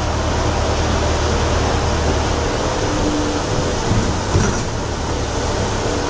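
Steady running noise inside a moving hybrid bus, with a low hum that is even for the first two seconds or so and then turns uneven.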